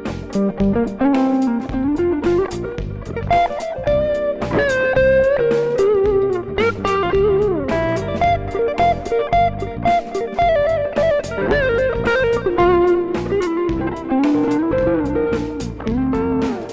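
Electric guitar, a Fender Stratocaster, playing a lead solo over a backing track with drums. The solo has held notes with vibrato and upward string bends, between quicker runs.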